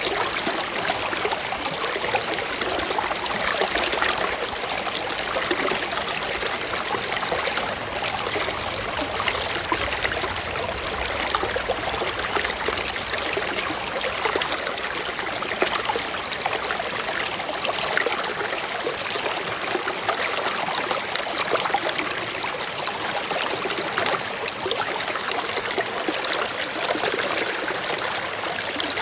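Water in a stream flowing and trickling steadily: a continuous bright splashing hiss with little deep rumble.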